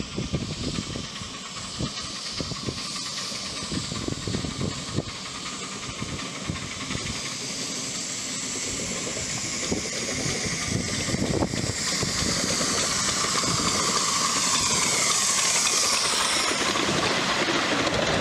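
Steam hissing from a 7.5-inch gauge live steam locomotive, steady at first and getting louder over the last several seconds, with scattered low knocks underneath.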